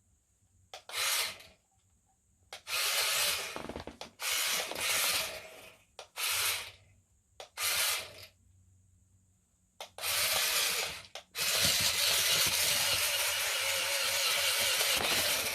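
Remote-control toy spider's small electric motor and gears whirring in short bursts as it is driven, then running steadily for about four seconds near the end.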